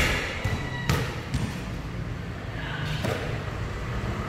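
A basketball strikes the hoop with a sharp knock and a brief ring, then bounces several times on a concrete court.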